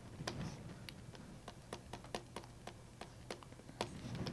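Stylus tapping and clicking on a pen tablet during handwriting: light, irregular clicks, roughly three a second.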